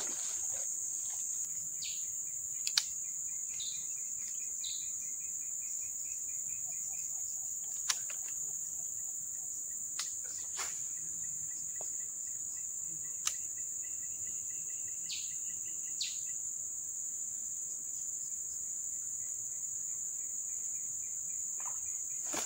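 A steady, high-pitched drone of insects, crickets or cicadas, runs throughout, with a rapid pulsing trill that comes and goes underneath. A few sharp clicks stand out, about five in all.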